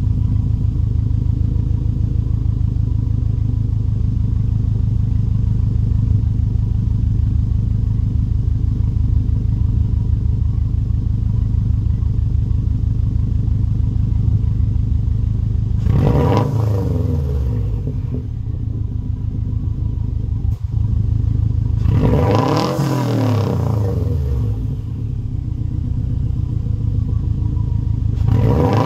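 2015 Subaru WRX STI's turbocharged 2.5-litre flat-four idling through an ETS Extreme non-resonated catback exhaust, a steady low rumble. A little past halfway it is revved, the pitch climbing and falling back to idle, then revved again about six seconds later, with a third rev just starting at the end.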